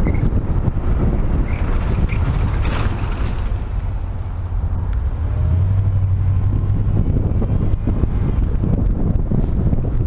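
Road noise of a moving vehicle: a steady low rumble with wind buffeting the microphone, and a low engine drone that comes up for about a second and a half a little past the middle.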